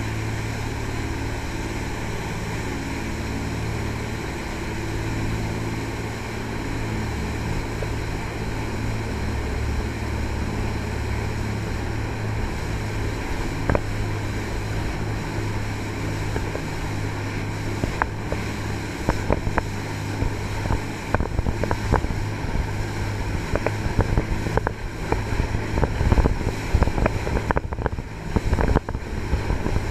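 Jet boat's three Cummins marine diesel engines driving Hamilton jet pumps, running steadily under way with a constant low drone. From a little past halfway, gusty wind noise and crackling on the microphone grow louder over the engine.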